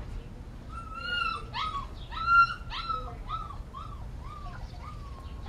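A goldendoodle puppy whimpering: a run of about ten short whines, each falling in pitch. The loudest comes about two and a half seconds in, and they fade toward the end.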